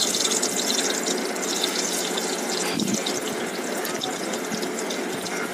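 Boiled potato sticks deep-frying in hot oil in a kadai: a steady sizzle with fine crackling throughout, as more raw pieces are dropped into the oil.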